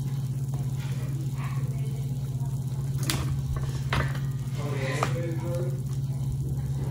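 A fork and other metal utensils clink a few times, about three to five seconds in, as cheesy chicken is loaded into hard taco shells. A steady low electrical hum runs underneath.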